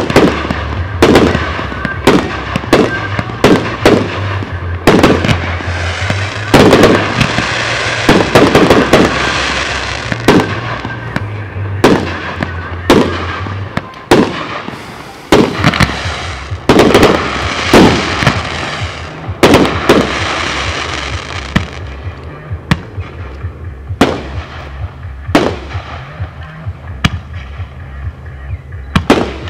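Aerial fireworks display: a rapid string of loud bangs from bursting shells, about one a second or faster, with crackling between them. The bangs come less often in the last third.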